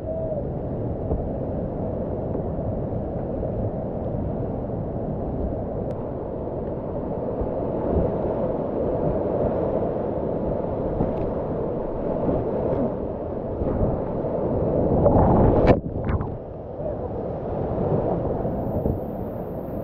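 Whitewater rapids rushing and splashing around a kayak, heard through the kayaker's own action camera. About fifteen seconds in, the rush swells to a louder splash that cuts off suddenly.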